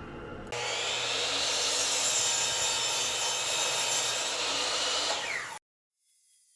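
Power woodworking tool running steadily, a loud hissing whine, then cut off abruptly about five and a half seconds in.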